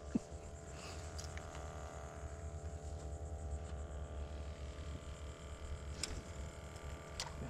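Steady low motor hum with a faint steady whine, and a few light clicks.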